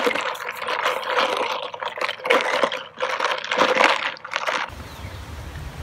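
Close, irregular rustling and brushing handling noise as a phone is moved past clothing and a clip-on plastic drink cup with a straw. About a second before the end it switches to a steady low rumble.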